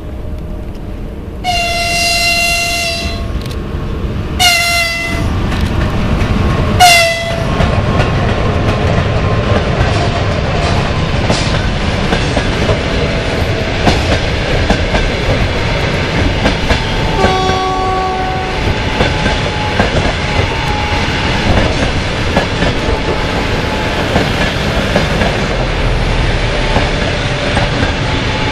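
EP1M electric locomotive sounding its horn three times, one long blast and two shorter ones, then the locomotive and its passenger coaches running close past with wheels clacking over the rail joints. A fainter short tone sounds a little past halfway.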